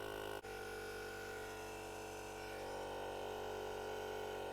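Small built-in air compressor of a portable jump starter running steadily with an even motor buzz as it inflates a van tyre. There is a brief break about half a second in.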